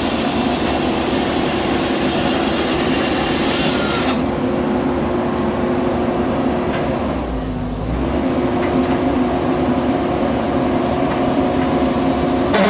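Chainsaw engine running steadily and loudly. It sounds bright and hissy for the first four seconds, then turns duller, with a brief dip a little past the middle.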